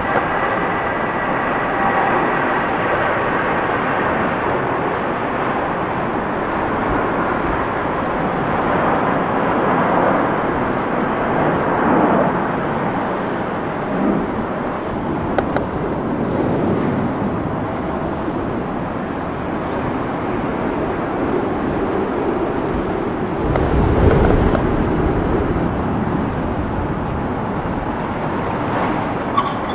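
Airliner jet engines on the runway: a whine of several high tones fades away over the first few seconds under a steady rushing roar. There is a stronger low rumble about 24 seconds in.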